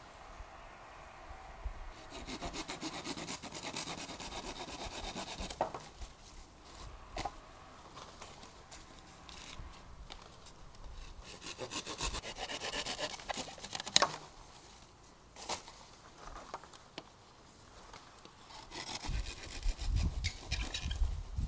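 Quick, rhythmic scraping strokes in three bouts with short pauses between, and one sharp knock about two-thirds of the way through.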